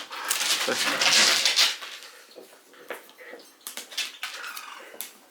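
Cardboard kit pieces scraping and rustling against each other for about a second and a half, then scattered light taps and clicks as the parts are handled and fitted.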